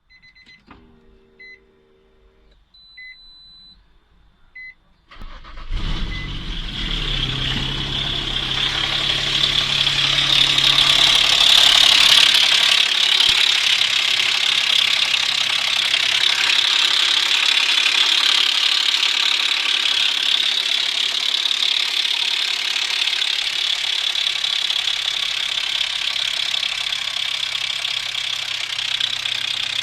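A few short electronic beeps, then an Infiniti FX35's VQ35 V6 starts about five seconds in and runs steadily with a knock, which the owner takes most likely for a broken timing-chain guide.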